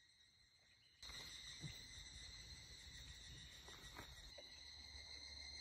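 Faint, steady high-pitched insect chorus. It gets suddenly louder about a second in, with a few soft clicks over it.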